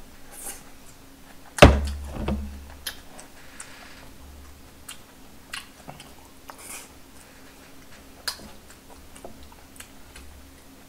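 Mealtime handling and eating sounds: small clicks of chopsticks against plastic delivery bowls and some chewing. About two seconds in there is one loud thunk as a plastic bowl is set down on the wooden table.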